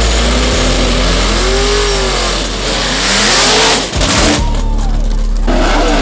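Loud drag-racing car engines revving, the pitch climbing and falling several times, with a brief drop about four seconds in before the roar picks up again.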